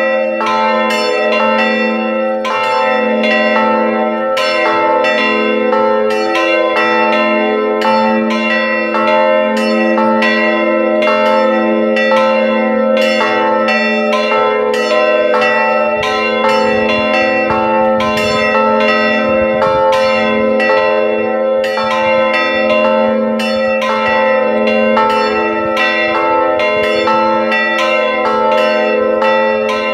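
Three swinging church bells in an open-frame bell tower ringing together in full peal, their strokes overlapping in a steady, unbroken clangour.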